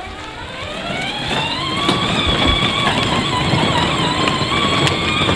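Battery-powered ride-on toy truck's electric drive motors and gearboxes whining as it pulls away, the whine rising in pitch over the first two seconds and then holding steady, with the wheels rumbling over rough concrete.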